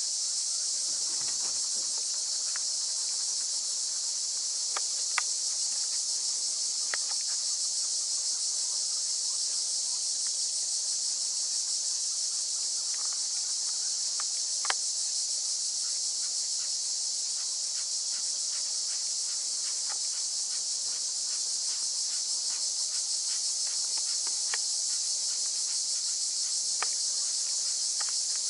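Dense, steady high-pitched insect chorus in the summer heat, shrilling without a break. A few faint sharp ticks stand out, the clearest about five and fifteen seconds in.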